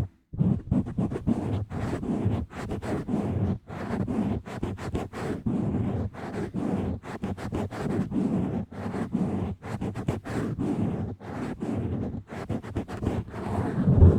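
Fingers rubbing and scratching directly on a microphone with no cover, a fast, uneven run of rough strokes, several a second, deep and buffeting like wind on the mic.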